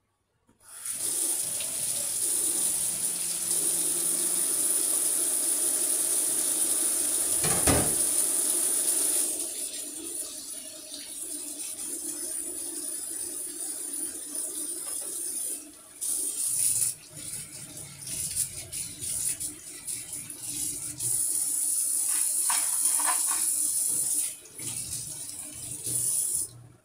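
Kitchen tap running into a stainless steel sink while utensils are washed and rinsed under it. The flow is strong at first, then lighter, and stops and starts a few times, with a few light knocks about three-quarters of the way through.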